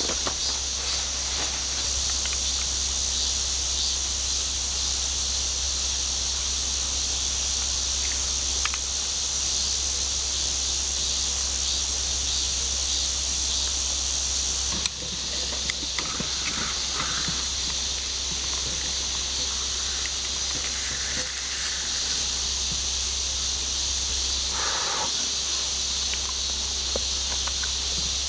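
Steady high-pitched insect chorus over the continuous rush of a mountain stream, with a brief sudden dip about halfway through.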